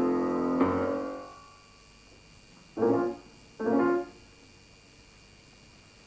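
Chords played on a keyboard instrument. A held chord at steady loudness breaks off just after the start and fades away, then come two short chords about a second apart, followed by a pause.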